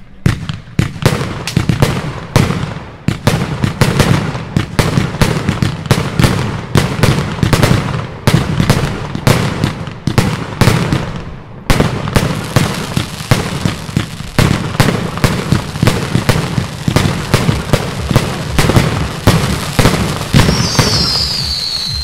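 Triplex TXB401 Blizzard fireworks battery firing: a rapid string of launch thumps and aerial bursts, about three a second, with a falling whistle near the end.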